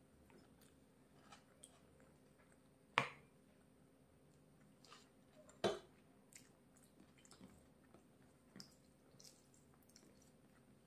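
A person chewing food: faint wet mouth clicks and chewing, with two louder sharp clicks about three and five and a half seconds in.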